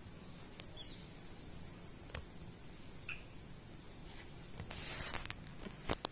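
Faint outdoor background with a few short, high chirps scattered through it, a brief rustle about five seconds in, and a quick cluster of sharp clicks near the end as the phone is handled and swung toward the ground.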